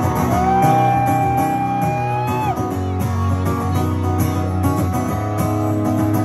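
A live country band playing, with guitar prominent. One long high note is held for about two seconds near the start.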